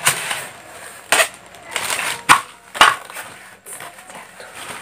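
Plastic wrapping and packing material rustling and crunching as it is handled, with four louder crunches over the first three seconds and softer rustling in between.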